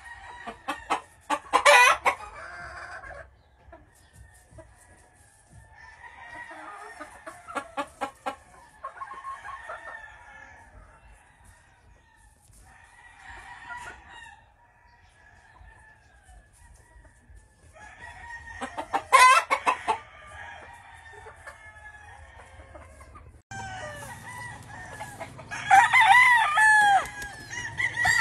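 Gamefowl roosters crowing and chickens clucking, with brief loud calls twice and a long crow near the end.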